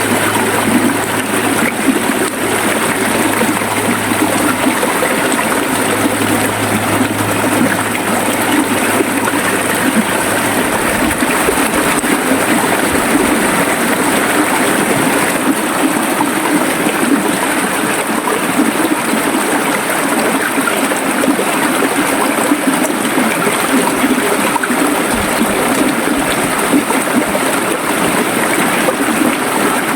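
River water running steadily and gurgling, an even, unbroken rush.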